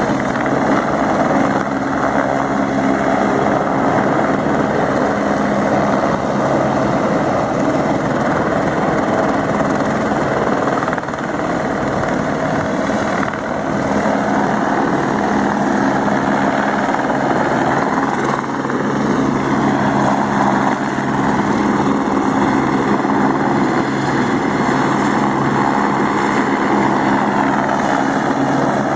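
Helicopter hovering, its rotor and engine running in a steady, loud drone.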